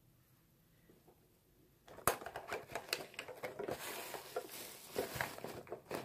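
Rummaging through makeup tools: a rapid run of clicks and clatters of small hard objects being handled, starting about two seconds in after a quiet start.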